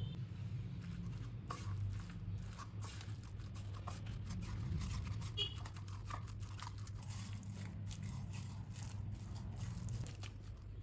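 Irregular soft clicks and rustles of food being handled during kitchen preparation, over a steady low hum.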